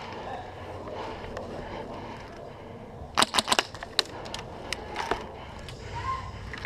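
Airsoft gun firing: a quick burst of about five sharp snaps a little after three seconds in, then single shots over the next two seconds, over a steady rustle of movement.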